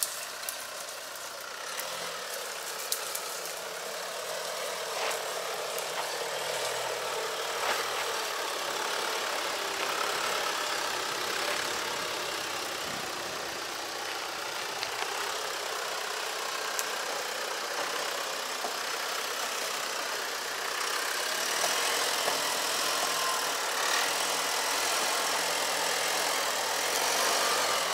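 Diesel Jeep Wrangler Rubicon with its top open, crawling over a rough dirt track: steady engine noise mixed with tyre and road noise and scattered small knocks, getting a little louder in the last quarter.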